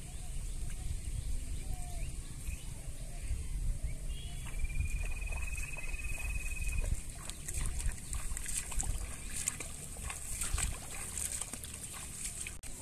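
Footsteps wading through a flooded rice paddy: water sloshing and plants brushing, with rustling and clicking growing busier in the second half over a low rumble. A long thin whistle sounds once about five seconds in.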